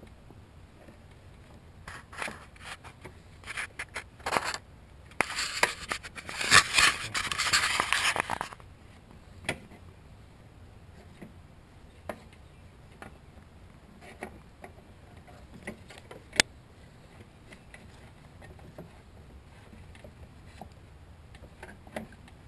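Self-propelled lawnmower drive belt being worked off its pulley by gloved hands, scraping and rubbing against the pulley and mower housing. The scraping is loudest in a dense stretch of about three seconds, starting about five seconds in. After that there are only occasional light clicks and knocks.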